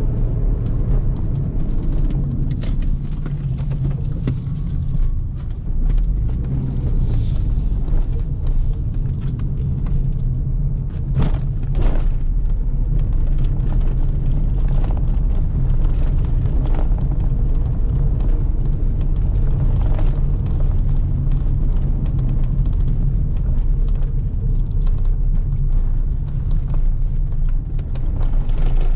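Cabin noise of a Fiat Multipla being driven: steady low engine and road rumble, with scattered short knocks and rattles. For part of the way the tyres run over cobblestones.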